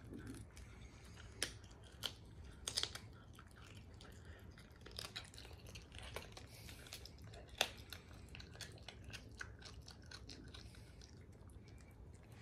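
A serval chewing and gnawing on a raw chicken wing: faint, irregular crunches and clicks of its teeth, the sharpest a little past halfway.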